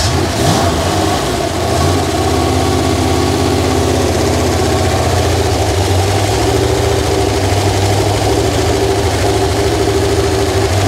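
Freshly rebuilt Ford 302 small-block V8 with a Holley four-barrel carburettor catching on its first cold start. The revs rise briefly twice in the first two seconds as the throttle is worked, then the engine settles into steady, even running at idle.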